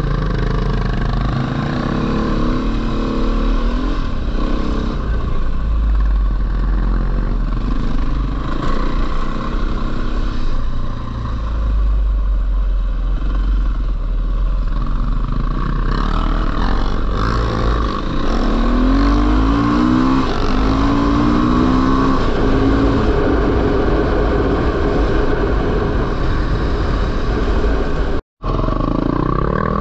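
Four-stroke single-cylinder dirt bike engine running under way on the trail, its revs rising in a few climbs about twenty seconds in. The sound cuts out for an instant near the end.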